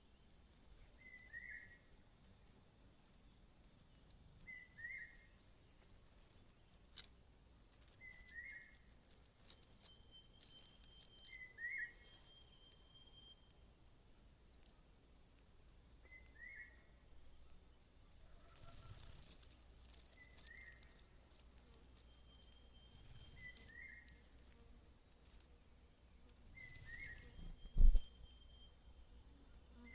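Birds calling: a short mid-pitched call repeated steadily about every second and a half, with many faint, quick high chirps over it. A few brief rustles, and one sharp low thump near the end, the loudest sound.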